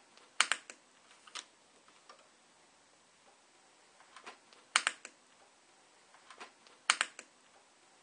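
Small sharp clicks in short clusters every couple of seconds, from a chrome SharkBite push-to-connect fitting being worked onto red PEX tubing by hand.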